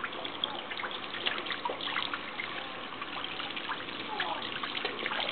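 Garden hose running water into a basin of water, a steady trickle and pour with many small splashes throughout.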